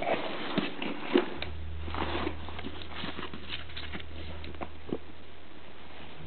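Close rustling, scrabbling and sniffing of a pet ferret climbing over a person, with several sharp clicks in the first two seconds. A steady low hum comes in about a second and a half in and holds.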